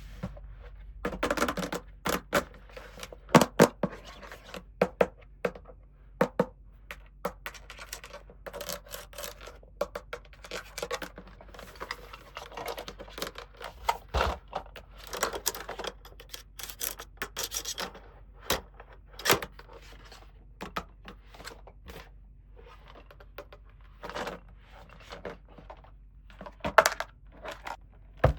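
Toys and their packaging being unboxed by hand: scratching, scraping and tearing, with many sharp, irregular clicks of small toy parts.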